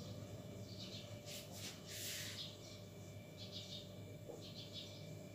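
Faint squeaks and scratches of a marker pen writing on a white board, a few short strokes, over a low steady hum.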